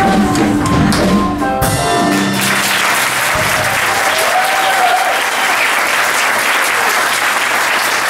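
A musical theatre song ends on its last held notes, and audience applause breaks out about two and a half seconds in and carries on.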